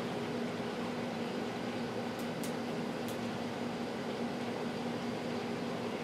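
Steady mechanical hum with a constant low tone, like an air conditioner or fan running, plus a few faint, very short high ticks about two to three seconds in.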